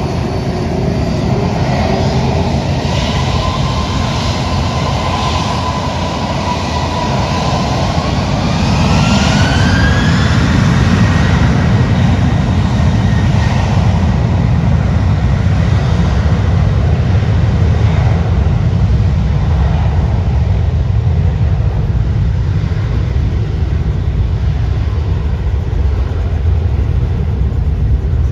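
Qantas Airbus A330-300's twin jet engines spooling up for takeoff. A whine rises in pitch about eight to ten seconds in, and the low rumble grows louder and then holds steady as the airliner rolls down the runway.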